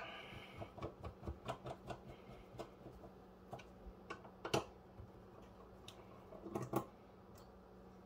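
Small screws and the sheet-steel drive cage of a server case being handled and fitted by hand: irregular light metallic clicks and taps, quick at first and then sparser, with a sharper click about four and a half seconds in and a short cluster near the end.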